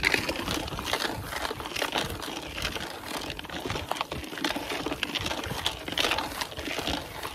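Continuous rustling and crackling from someone walking through tall dry grass, with hoodie fabric brushing close to the phone's microphone.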